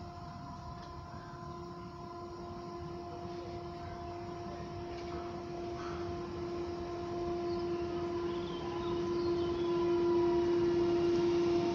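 Newag Impuls 2 (36WEd) electric multiple unit approaching a station platform: the steady whine of its electric traction drive over a low running rumble, growing louder as it draws near.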